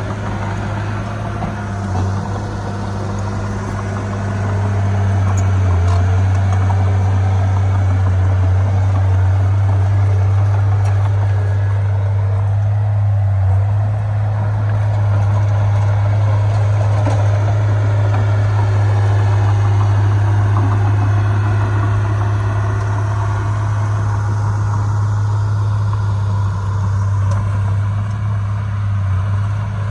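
Heavy earthmoving machine's diesel engine running steadily with a deep hum, getting a little louder about five seconds in.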